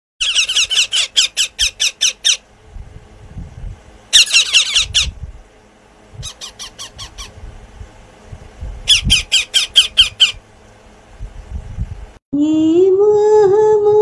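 Parakeet chicks calling in fast runs of shrill squawks, about five a second, in four bouts with short pauses and soft low thumps between. A little after twelve seconds a sung melody starts abruptly.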